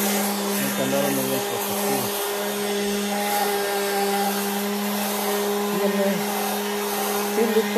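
Milwaukee M18 cordless orbital sander running steadily and sanding a painted steel beam: an even motor hum over the hiss of the pad on the metal.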